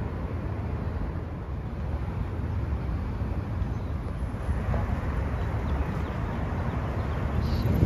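Outdoor city ambience: a steady low rumble, with traffic noise and wind buffeting the microphone.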